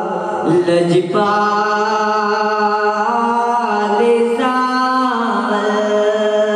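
A man's voice singing a naat, holding long drawn-out notes that shift in pitch a few times.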